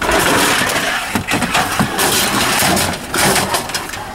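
Rummaging through discarded computer hardware in a dumpster: a metal tower case and other junk being shifted, scraping and rattling against each other in a loud, continuous noisy clatter.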